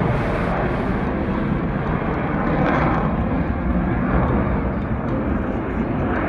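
A fixed-wing aircraft flying past: loud, steady engine noise that swells slightly a few times.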